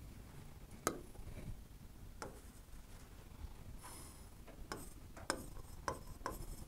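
Stylus pen on an interactive touchscreen board, ticking and tapping faintly as it writes: a single tap about a second in and another near two seconds, then a quicker run of taps near the end.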